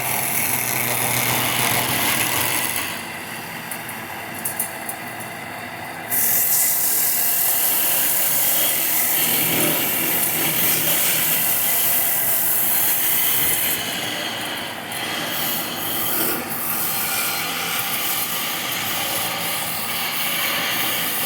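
Power tools cutting and sanding wood, a steady noisy machine sound that changes abruptly about three and six seconds in and is loudest and brightest from about six to fourteen seconds in.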